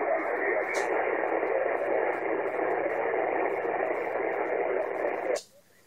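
Shortwave receiver on 80-metre single sideband putting out steady static hiss with no one transmitting, with a brief click about a second in. Near the end the hiss cuts off suddenly to near silence.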